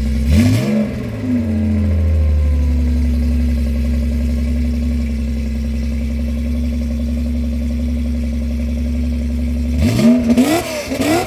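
Porsche 930 Turbo's air-cooled turbocharged flat-six idling, blipped once about half a second in, then holding a steady idle. Near the end it gets two or three quick throttle blips.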